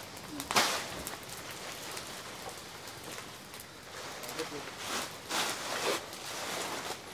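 A fire of cleared brush burning, crackling with irregular sharp pops and snaps, a few louder ones standing out, the sharpest about half a second in.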